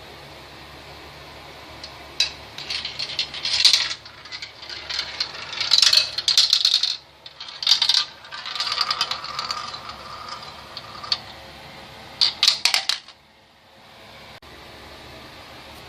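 Marbles rolling and clattering down a marble run: rapid clicks and rattles in several bursts, starting about two seconds in and stopping about thirteen seconds in.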